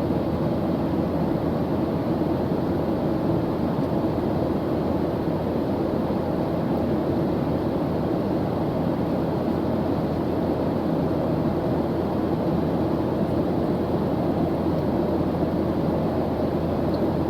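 Airplane engine noise in flight: a steady, even drone of noise, strongest in the low and middle range, with no change in pitch or level.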